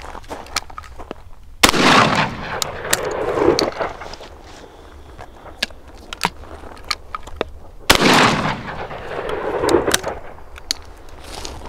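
Two shots from a Rock Island Tradition 20-gauge single-shot shotgun, about six seconds apart, each followed by a long rolling echo that swells again a second or two after the blast. Between the shots come small metallic clicks of the break action being opened and a fresh shell loaded.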